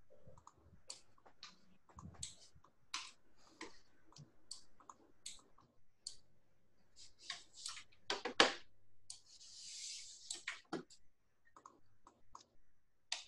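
Computer mouse and keyboard clicking at an irregular pace, single clicks and quick little runs, during 3D modeling work in Blender. A short soft hiss comes about ten seconds in.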